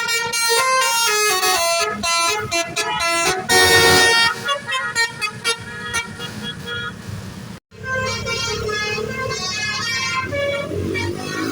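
Basuri telolet bus horn, a multi-tone air horn, playing a quick tune of stepping notes, with a louder blast about four seconds in. The tune breaks off for an instant about two-thirds of the way through, then goes on.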